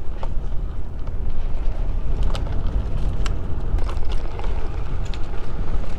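Wind rumbling on the microphone of a bike-mounted camera riding fast down a dirt trail, with tyres rolling over dirt. Scattered sharp clicks and knocks mark the rough surface.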